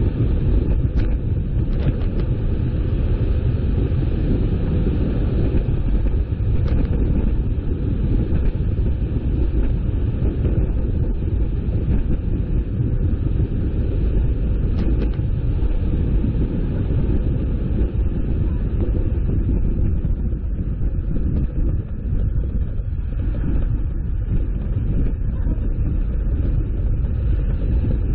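Steady low rumble of a moving vehicle on the road, with a few faint clicks scattered through.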